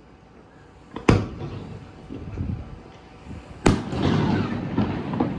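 Two aerial firework shells bursting, about two and a half seconds apart, each sharp bang followed by a rolling rumble of echo that lasts longer after the second.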